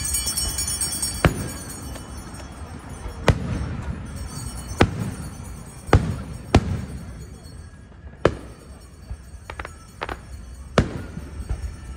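Aerial firework shells bursting overhead: about seven sharp booms a second or two apart, each with a short rumbling echo, and a few fainter pops near the end.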